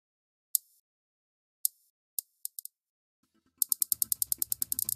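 Sharp mechanical clicks: two single clicks about a second apart, then a quick group of four, then from about three and a half seconds a fast even run of clicks, roughly eight a second. A low drone comes in under the run near the end.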